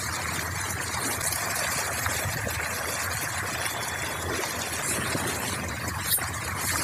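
Water splashing and churning steadily as a dense crowd of farmed fish thrashes at the pond's surface, with a sharp click about six seconds in.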